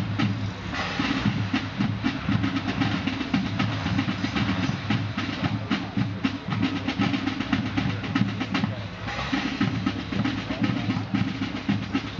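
Military marching band playing on the field: drums beating continuously, with low brass such as sousaphones.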